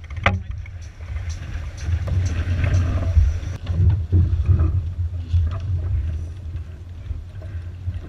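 Wind buffeting the microphone aboard a sailing yacht under way: a low rumble that swells and fades, loudest in the middle, with faint rushing of water along the hull.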